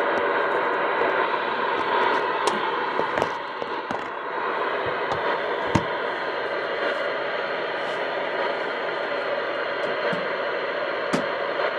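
CB radio receiver hissing with steady static through its speaker, with a few faint clicks; the awaited test transmission is not coming through.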